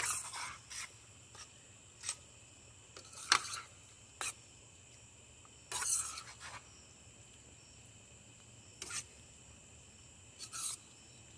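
Metal spoon scraping and clinking against a stainless steel skillet as stir-fried chicken, vegetables and sauce are stirred, in irregular strokes a second or two apart. Crickets chirr steadily behind.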